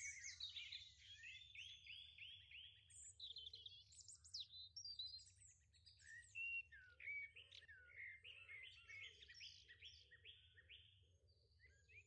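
Faint birdsong: several birds chirping in quick runs of short sweeping notes. A low note repeats about twice a second through the second half.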